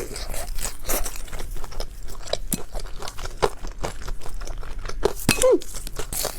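Close-up chewing of a deep-fried glutinous rice ball with meat filling: irregular crisp crunches and wet mouth clicks, with a brief pitched sound about five seconds in.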